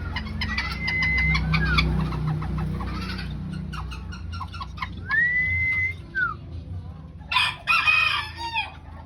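Chicken calls in an aviary: two long whistled notes that rise and hold, scattered short clucks, and a loud rooster crow lasting about a second and a half, starting about seven seconds in.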